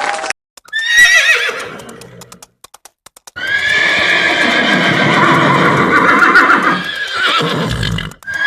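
Horse whinnying: a short whinny about a second in, a few sharp clicks, then a long, loud whinny that quavers toward its end.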